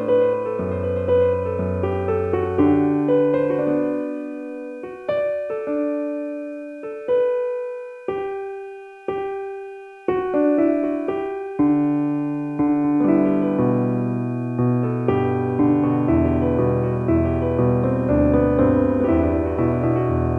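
Slow, gentle piano music. Sustained chords thin out to single notes left to ring and fade from about four seconds in, then fuller chords return near the middle.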